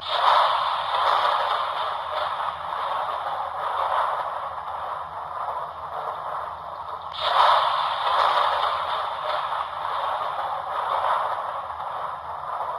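Spooky sound effect played through the small speaker of a Lionel Halloween globe train car: a thin, noisy scraping whoosh that starts abruptly and swells again about seven seconds in.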